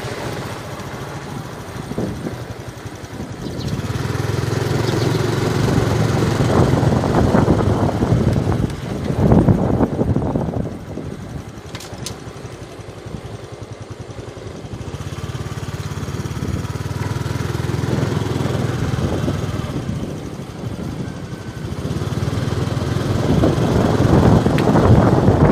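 Small motorbike engine running steadily while riding, mixed with rushing wind noise on the microphone that swells about a third of the way in and again near the end.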